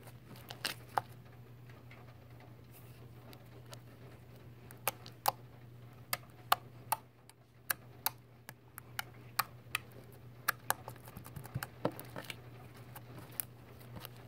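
Homemade glue slime being poked and squeezed by fingers, giving off sharp, irregular clicks and pops, over a low steady hum.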